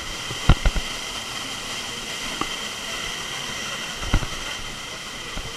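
Steady rushing roar of a waterfall, with a few short thumps about half a second in and again near four seconds.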